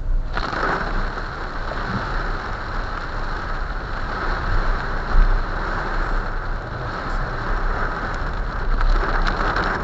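Heavy rain and water spray hitting a moving car, heard from inside. The noise starts suddenly just after the start and stays steady over the car's low rumble.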